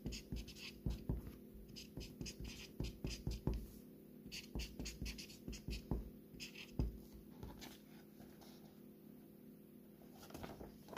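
Chisel-tip felt marker writing on a sheet of paper: a run of short, scratchy pen strokes as letters are drawn, thinning out after about seven seconds.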